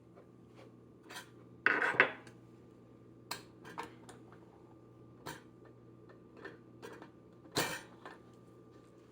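Metal and crockery clinking and knocking as espresso gear is handled: a loud clatter about two seconds in, another near the end, and smaller taps between. A steady low hum runs underneath.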